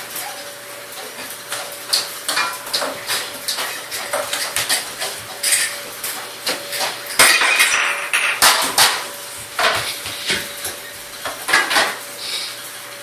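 Dishes and utensils clattering: irregular clinks and knocks, busiest about seven to nine seconds in.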